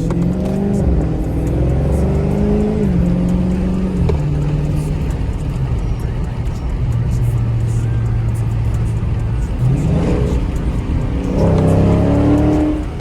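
Dodge Charger Scat Pack's 392 (6.4-litre) HEMI V8 pulling through the gears: its pitch rises and drops back at upshifts in the first few seconds, holds steady at a cruise for a few seconds, then climbs again near the end.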